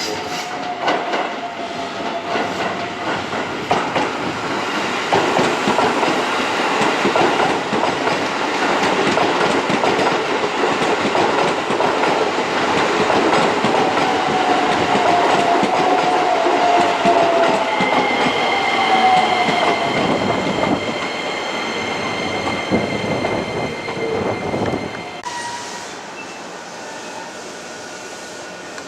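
Keisei Line electric train running past the platform, wheels clattering over the rail joints, with whining and squealing tones over the rumble. It builds over the first few seconds, stays loud, and drops away sharply about 25 seconds in.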